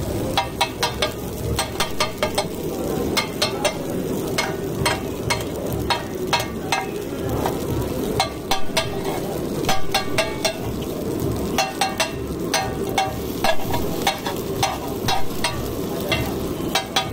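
Aloo tikki potato patties frying in oil on a large flat griddle, sizzling steadily. Metal tongs clack against the griddle in quick irregular runs of clicks as the patties are pressed and broken up.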